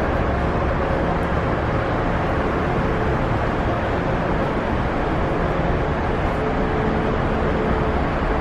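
Steady low rumbling noise of wind over the microphone on a cruise ship's open promenade deck, with a faint steady hum joining about six seconds in.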